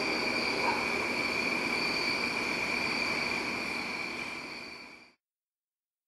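Outdoor background just after a train horn stops: two steady high-pitched tones, typical of an insect chorus, over a broad rushing noise. The recording fades out about five seconds in and goes silent.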